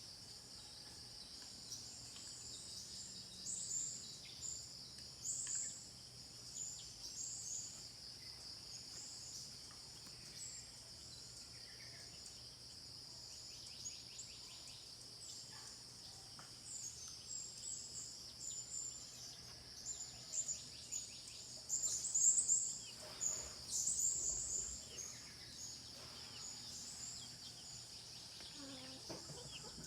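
Steady high-pitched insect drone with scattered short, high bird chirps coming in clusters, busiest about three quarters of the way through.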